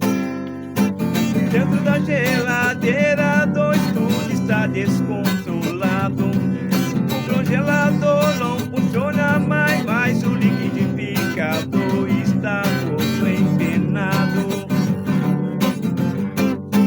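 Acoustic guitar strummed steadily, with a melody line over it that bends in pitch.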